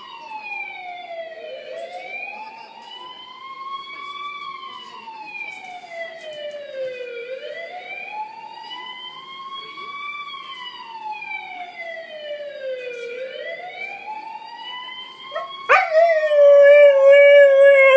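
A police siren wailing, its pitch sliding slowly up and falling back down about every six seconds. About sixteen seconds in, a husky breaks in with a much louder, long howl that wavers toward the end.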